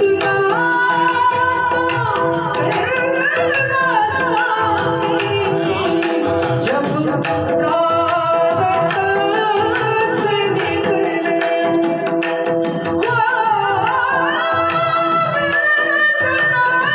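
Marathi Warkari devotional singing: a solo voice sings an ornamented, gliding melody over a steady held drone, with regular hand-drum strokes throughout.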